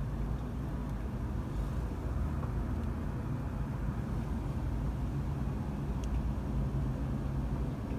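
Steady low mechanical hum with faint constant tones, heard from inside a car's cabin.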